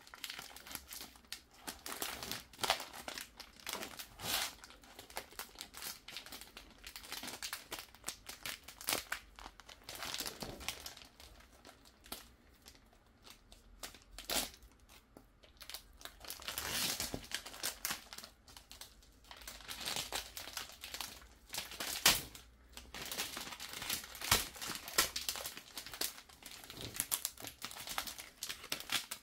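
Clear plastic shrink wrap crinkling and rustling in irregular bursts as it is handled and peeled off a card portfolio, with a few sharper snaps, the loudest about three quarters of the way through.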